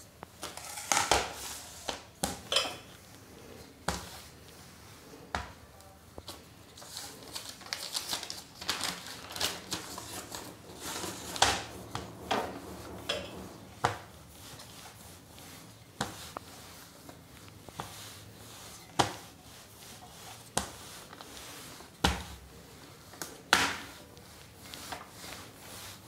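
Wooden rolling pin rolling out kaju katli dough on a paper sheet over a plastic chopping board: irregular sharp knocks and clicks as the pin is set down and pushed back and forth, with rustling of the paper between them.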